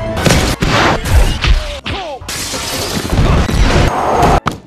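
Edited action-film sound effects: a quick string of crashes and smashes in the first two seconds. These are followed by a couple of seconds of dense, loud rushing noise as an elevated train bears down, which cuts off just before the end.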